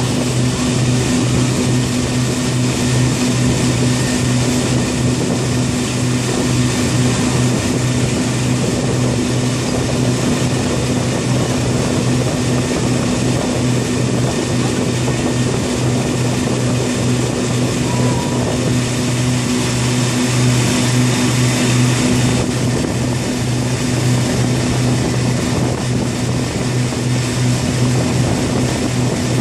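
Motorboat engine running at a steady cruising speed with a constant low hum, over the rush of the boat's churning wake.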